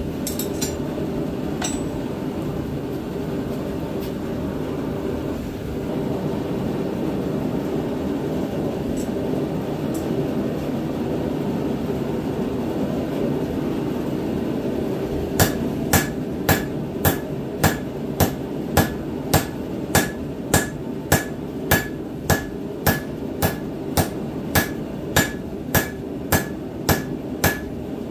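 A steady rushing noise with a few light metallic clicks, then, about halfway through, a hand hammer starts striking red-hot steel on the anvil in an even rhythm of a little under two blows a second, each blow ringing briefly. The steel being forged is the head of a tomahawk made from a black powder rifle barrel.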